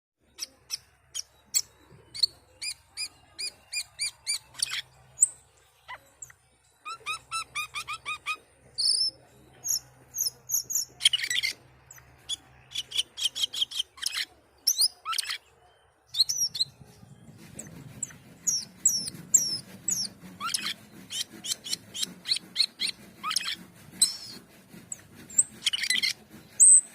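A cucak keling (jalak keling) singing hard and without pause, in fast series of sharp, shrill repeated notes broken by chattering bursts and short gliding whistles.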